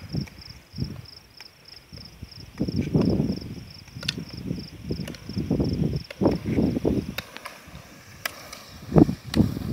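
Insect chirping in a steady, even pulse, high-pitched, over irregular low rumbling gusts, with a few sharp clicks.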